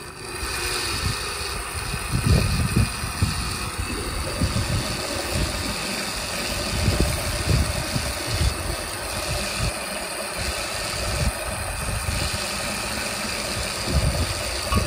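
Blender motor running steadily, puréeing cooked tomatoes and tomatillos into a smooth sauce.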